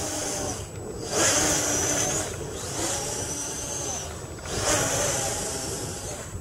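Electric motors and propellers of a V-tail quadcopter in flight, a buzzing whine that rises and falls in pitch and swells louder about three times as the throttle is worked.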